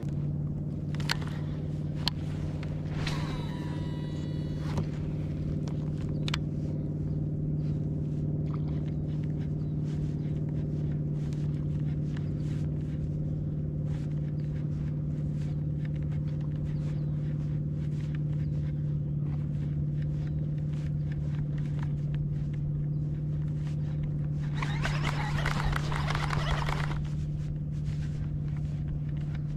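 A steady low mechanical hum, like a small motor running, with scattered light clicks. A brief whine comes about three to five seconds in, and a hiss lasts about two seconds starting about 25 seconds in.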